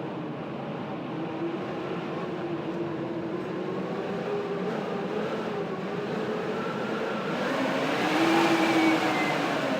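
Blizzard wind howling steadily with a wavering pitch, swelling into a louder gust about eight seconds in.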